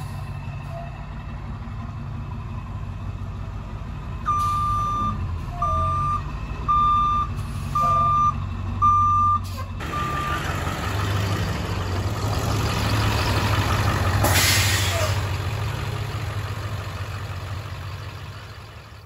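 School bus engine running steadily while its reversing alarm beeps six times, about once a second, then stops. A loud burst of hissing air comes about three-quarters of the way through.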